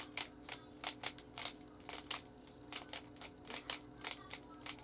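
Plastic Rubik's cube layers being twisted in quick succession, a run of short clicks at an uneven pace of about two to three a second as a solving sequence is carried out.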